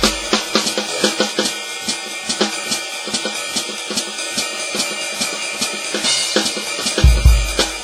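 Alesis DM10 electronic drum kit played fast, a quick run of snare, tom and hi-hat hits. A cymbal crashes about six seconds in, and heavy bass-drum hits come in near the end.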